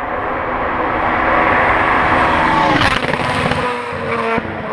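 Rally car engine at full throttle, growing louder as it approaches, with a sharp drop in pitch about three seconds in; the engine note then climbs again and drops once more near the end.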